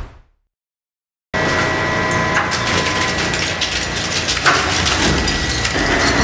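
A brief swell of noise, then silence, then an industrial shredder suddenly cuts in with material grinding, crunching and splintering in its cutters over the steady tone of the machine. There is one sharp crack about four and a half seconds in.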